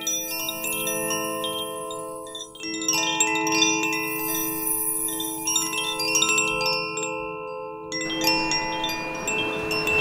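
Koshi 'Air' wind chime ringing continuously, its tuned rods struck over and over so that several clear notes overlap and sustain. Near the end, the rushing wash of waves on rocks comes in beneath the chimes.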